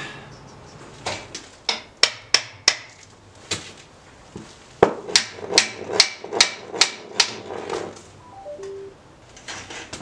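Sharp knocks from tapping an engine hoist's caster wheels to turn them and steer the loaded hoist. A few scattered taps come first, then a quick run of about nine strikes at roughly three a second.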